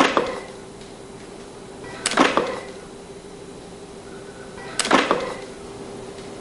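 Plaster piece-mold sections being pried and pulled off a clay sculpture model: three short knocks, at the start, about two seconds in and about five seconds in, over a steady low hum.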